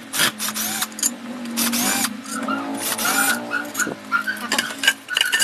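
Handling noise from an opened power inverter: knocks, clicks and scrapes of its metal case and aluminium heatsinks being moved, with a few short squeaks.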